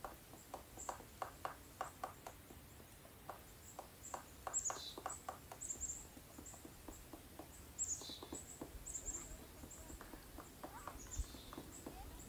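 Birds calling faintly: short high chirps, and a thin call that slides down in pitch three times, about three seconds apart. Under them runs a scatter of irregular soft clicks and taps.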